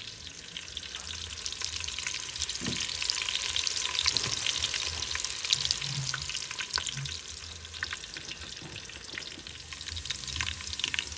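Chopped onions frying in hot oil in a stainless steel pot, a steady crackling sizzle as they turn brown.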